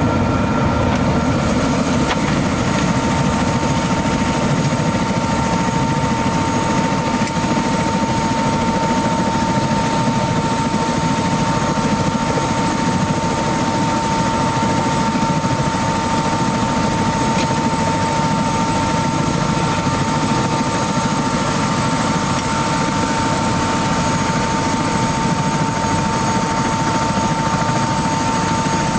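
Helicopter turbine engine and rotor running steadily at the pad, a dense even noise with a constant high whine over it.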